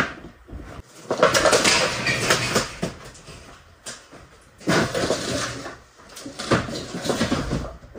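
A large steel-faced sandwich wall panel being dragged, scraped and set down flat on a dirt floor, with metallic clattering and knocks in three bouts: about a second in, in the middle, and near the end.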